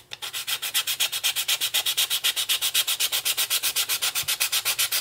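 Sanding block rubbed quickly back and forth along the edge of a wooden coaster, in even scraping strokes several times a second. The sanding is trimming off the overhanging decoupage napkin at the coaster's sharp edge.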